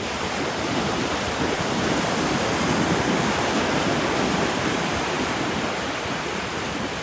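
Ocean surf washing up a beach: a steady rush of breaking waves that swells a little in the middle.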